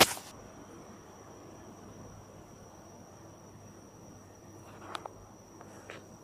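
A cricket trilling steadily on one high pitch. A loud bump of the phone being handled comes right at the start, and two soft clicks come about five seconds in.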